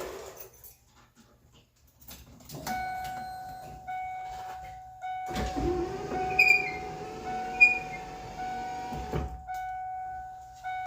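Power window motor in the driver's door of a 1993 Ford Mustang running for about four seconds, from about five seconds in, its pitch rising briefly as it starts and then holding steady. A steady high-pitched tone sounds alongside it from a few seconds in.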